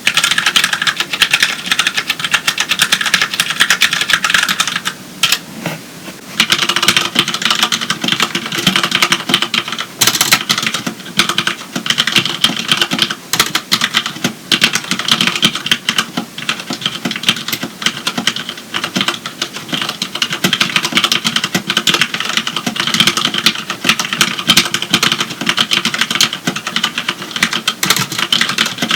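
Fast, continuous typing on a mechanical keyboard with Cherry MX Brown switches, which are tactile but do not click. After a brief pause about six seconds in, typing resumes on a keyboard with linear Cherry MX Black switches.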